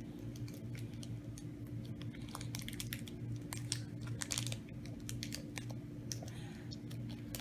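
A thin paper wrapper crinkling as small fingers pick it open to get at a tiny toy, with many small irregular crackles. A steady low hum runs underneath.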